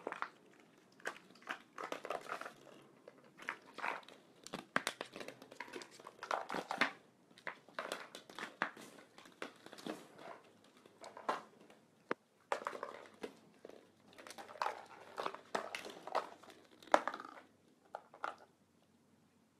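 Hollow plastic ball-pit balls clattering and knocking against each other and the hardwood floor as a fox terrier noses and paws through them: an irregular run of light clicks that dies out near the end.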